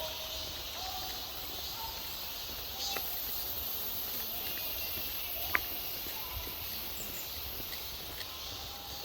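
Steady rushing of a mountain valley stream, with faint short calls over it and a sharp click a little past halfway.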